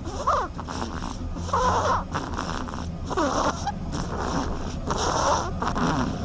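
A yellow duckling snoring in its sleep: squeaky, wheezy snore breaths that sound much like human snuffling, the biggest coming about every one and a half to two seconds.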